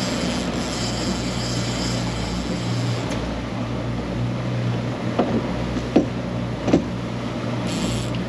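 Boat engine running steadily under way, a low even hum over a wash of water and wind noise. Three short knocks come about a second apart in the second half.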